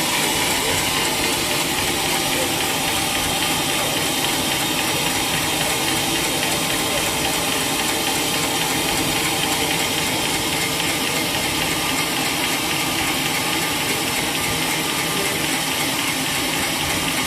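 Sawmill machinery running steadily: an even, dense mechanical noise with a faint hum, unchanging throughout.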